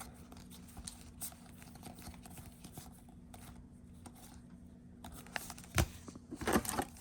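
Trading cards being handled and flipped through: soft scattered clicks and slides of card stock, with a sharper click about six seconds in and a few more near the end.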